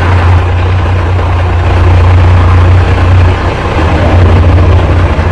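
BMC TM-140 truck's diesel engine running steadily, heard close to its muffler: a loud, deep, even exhaust drone.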